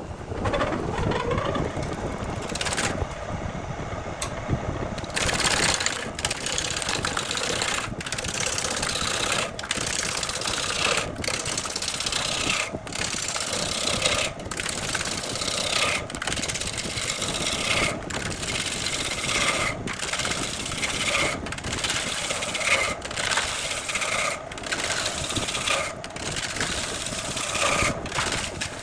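A power tool running and cutting into wood, heard in a string of short pieces with a brief break about every second and a half.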